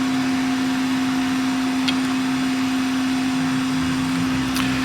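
Hot air rework station blowing steadily: an even hiss over a steady low hum, with a faint click about two seconds in and another near the end.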